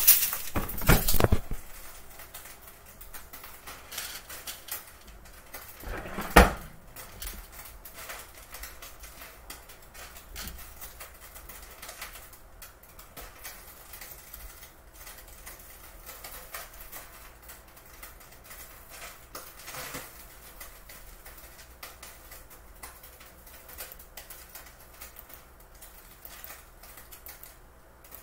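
Clatter and knocks of a phone being handled and set down on a kitchen counter, then a single sharp knock about six seconds in, followed by faint scattered ticks and taps.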